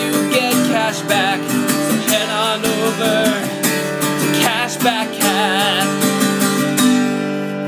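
Acoustic guitar strummed in chords, with a man singing over it. A final chord is held and left ringing near the end.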